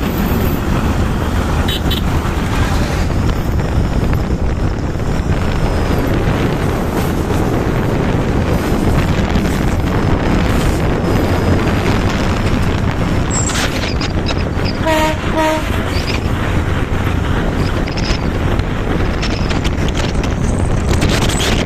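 Wind rushing over the microphone of a phone mounted on a moving motorcycle, mixed with the running of the motorcycle and the train alongside, a steady loud noise. About fifteen seconds in, a horn gives two short toots.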